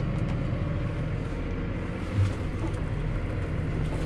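New Holland tractor's diesel engine running steadily, with one brief low thump about two seconds in.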